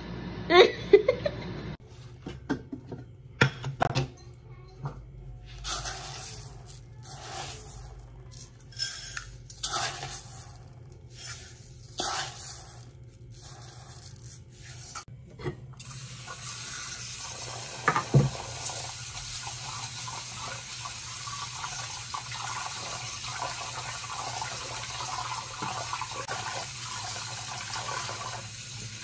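Dry rice being scooped with rustles and clicks from a plastic bin into a pot, then a tap running steadily into the pot as the rice is washed, with a single knock of the pot soon after the water starts.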